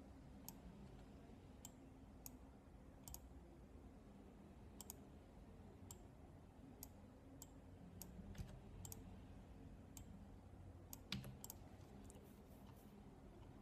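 Faint, irregular single clicks of a computer mouse, one every half second to a second or so, with a quick run of clicks a little past the middle, over quiet low room hum.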